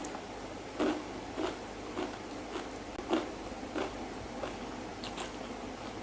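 A person chewing food close to the microphone: short, wet mouth clicks about every two-thirds of a second, evenly paced.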